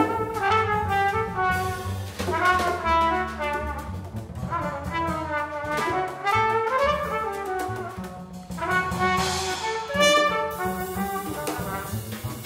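Live jazz quartet playing: trumpet and tenor saxophone melody lines over double bass and drum kit, with frequent drum and cymbal strikes.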